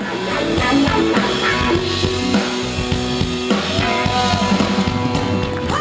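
Rock music played on drum kit and guitar with a steady beat, starting suddenly.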